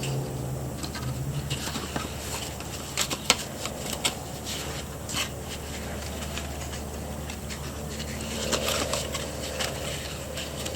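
Scraping and scratching of parts being handled, with scattered sharp clicks, over a steady low hum.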